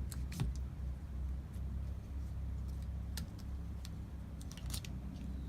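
Windshield wiper arm and blade being handled, giving scattered small clicks and ticks of the parts knocking together, over a low steady rumble.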